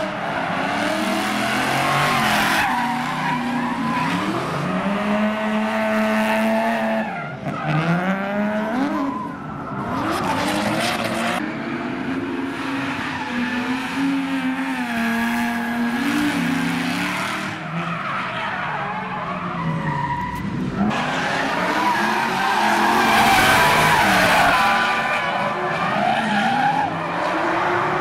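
BMW E46 drift car with a G-Power supercharged 4.0-litre S65 V8 drifting: the engine revs rise and fall again and again through the slides while the rear tyres squeal and skid several times.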